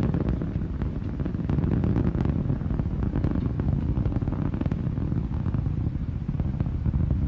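Titan IVB rocket climbing on its two strap-on solid rocket motors: a steady, deep roar with a faint crackle running through it.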